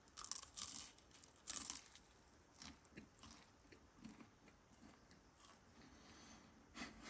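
Biting into and chewing crisp tempura-battered wild maitake mushroom: a few sharp crunches in the first two seconds, then softer chewing.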